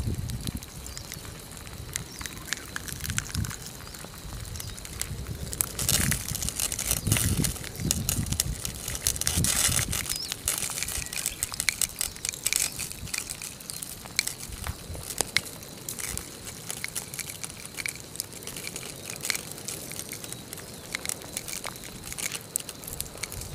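Molten lava engulfing a ruptured aluminium energy-drink can: dense crackling and sizzling as the can's liquid boils off, with a louder burst of hissing steam and spray between about six and ten seconds in.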